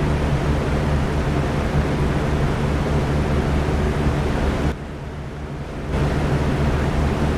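Electric fan running steadily, a rushing whoosh of moving air over a low motor hum. Past the middle it drops quieter for about a second, then comes back at full level.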